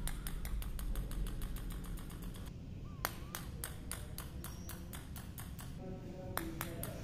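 Rapid light clicks with a slight metallic ring, several a second, as a white Persian cat bats and carries a small toy ball across a tiled floor; they thin out about halfway through and pick up again near the end.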